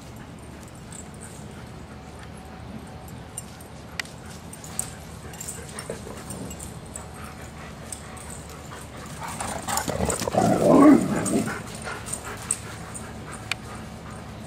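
Dogs playing rough on grass. A few light clicks and taps come early, then a loud burst of dog vocalizing, whines and barks, about ten seconds in, lasting around two seconds.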